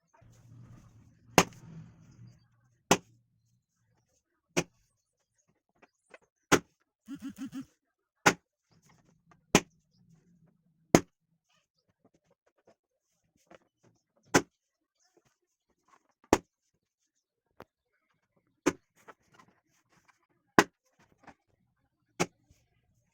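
Balloons bursting one after another: a sharp pop every second and a half to two seconds, about a dozen in all. There is a brief quick rattle of four softer pulses about seven seconds in.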